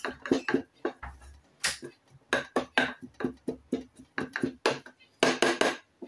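Irregular series of sharp clinks and taps of a utensil against a dish or container, a few per second, while crushed dried oregano is handled.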